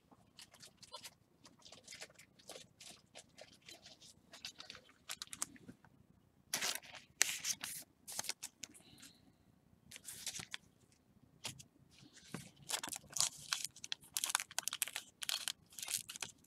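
Foil wrapper of a trading-card pack crinkling and tearing as gloved hands handle it and pull the cards out: a run of irregular crackles, with louder bursts in the second half.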